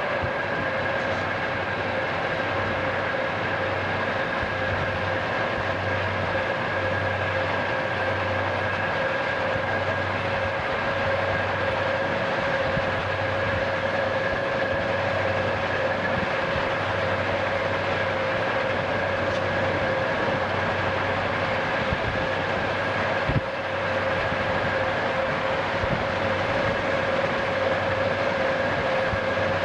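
Freight train's diesel locomotives and wheels running at track speed, heard from inside a car pacing alongside, blended with steady road and wind noise. A single short knock comes about three-quarters of the way through.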